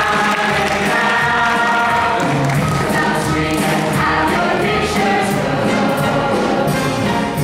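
A musical theatre ensemble singing in chorus, steady and full throughout.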